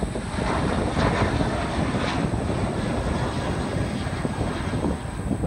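Boeing 737-800 jet climbing out after takeoff: the steady roar of its two CFM56-7B turbofans at takeoff thrust, heard from the ground at a distance.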